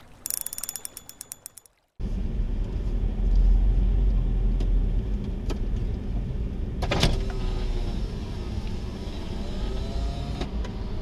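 A quick run of ticking clicks that fades out, then a cut to the low rumble of a car rolling slowly with its engine running, heard from inside the cabin. A single sharp click comes about seven seconds in.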